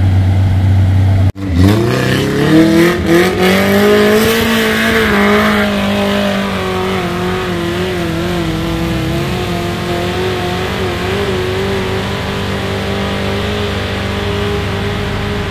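Off-road 4x4 engine revving up sharply just after a brief cut about a second in, then held at high revs, its pitch wavering slightly.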